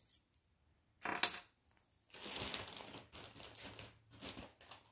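Metal jewelry clinking: one sharp clink with a short ring about a second in as a pendant necklace is put down among other jewelry, then a few seconds of rustling and soft clicks as more pieces are rummaged through.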